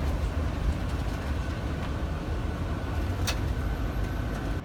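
Steady low rumble of a tour coach driving, heard from inside the cabin, with one sharp click about three seconds in.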